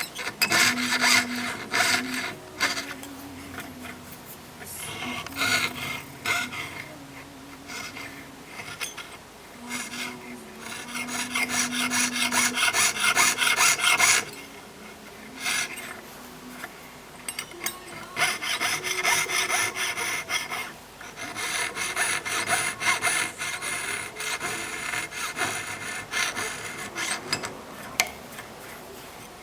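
Jeweller's piercing saw cutting through 1.5 mm 18K gold sheet by hand, a rapid rasping stroke repeated in spells with brief pauses.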